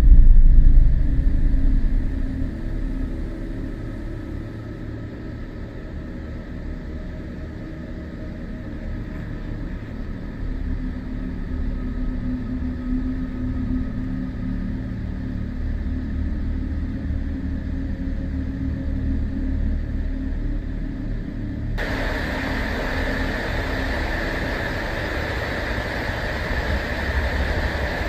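A deep, low rumble, very loud at first and fading over the first couple of seconds, then holding steady. About 22 seconds in, a loud hiss cuts in abruptly on top of it.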